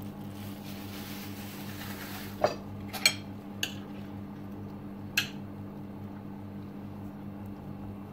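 A metal spoon clinking against dishes: about five sharp clinks a few seconds in, over a steady low hum.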